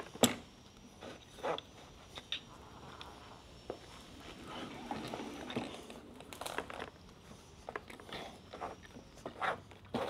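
Scattered metallic clicks and knocks with some scraping, as a 2020 KTM EXC-F's fork tube is slid back up through the triple clamps. The loudest knock comes right at the start, and a softer stretch of rubbing and scraping falls in the middle.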